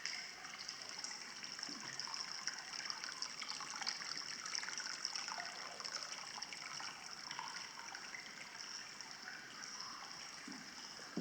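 Water trickling steadily, a continuous splashing hiss made of many small crackles.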